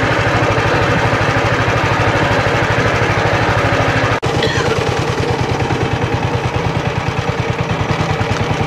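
Small boat engine running steadily with a rapid even chug, briefly dropping out about four seconds in.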